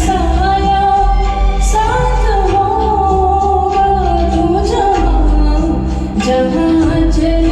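A woman singing a slow Hindi film song with long held, wavering notes over instrumental accompaniment with a steady bass.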